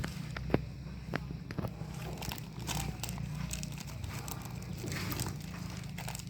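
Irregular crinkling and sharp clicks, the loudest about half a second in, over a steady low hum.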